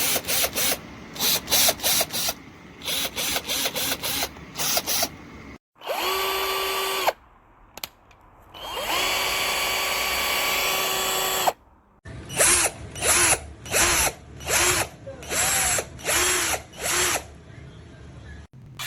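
Avid Power 20V cordless drill/driver motor run free in a quick string of short trigger pulses, then a steady whine of about a second and a longer one of about two and a half seconds, then another series of short spin-ups and spin-downs near the end.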